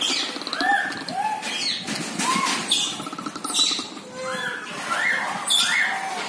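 Many short, arched animal calls at several pitches, chirping and squealing about twice a second and often overlapping.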